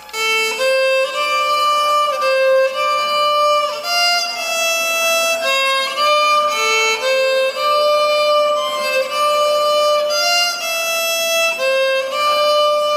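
Solo violin playing a bowed melody of held notes, with occasional slides from one note to the next and no accompaniment.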